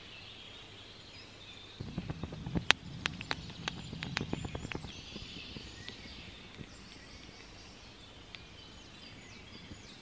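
Faint birdsong of the dawn chorus in a conifer forest: scattered short chirps and whistled glides. About two seconds in come a few seconds of rustling with sharp clicks.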